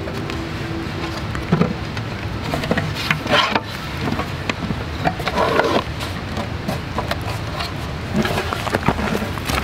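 A folding camp table being unfolded: irregular clicks, knocks and rattles as its metal legs are swung out and locked into place, with brief rustling of handling.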